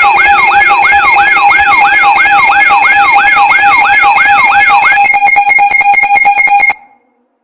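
Loud electronic alarm siren: a falling sweep repeating about three times a second over steady high tones. About five seconds in the sweeps stop and the tones stutter rapidly, then the alarm cuts off abruptly into silence.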